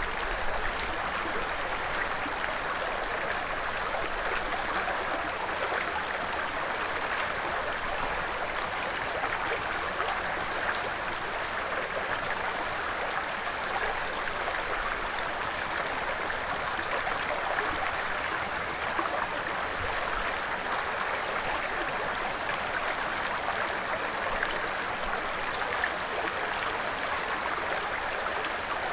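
Shallow stream flowing over rocks, a steady rushing of water.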